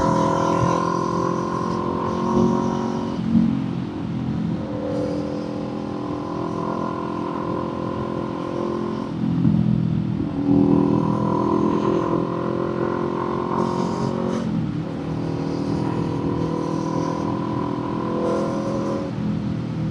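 Kawasaki Z400 parallel-twin engine and aftermarket exhaust running under way, heard from the rider's seat. The engine note changes pitch and restarts at a new pitch several times as the throttle is worked through the gears.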